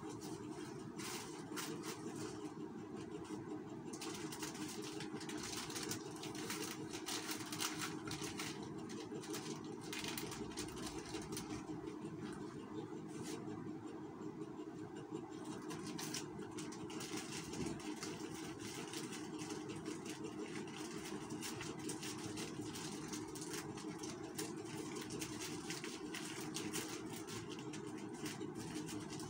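A steady mechanical hum throughout, with irregular crinkling and rustling of plastic snack sachet strips being handled.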